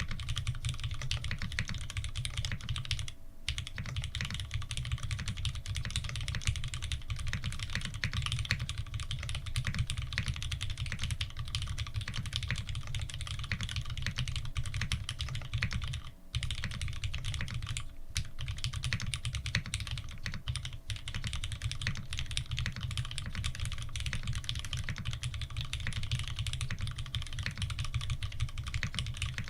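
Fast, continuous typing on an F2-84 mechanical keyboard with Krytox 105-lubed Cherry Retooled Black linear switches and GMK Oblivion keycaps: a dense, even stream of keystrokes, broken by brief pauses about 3 and 16 seconds in.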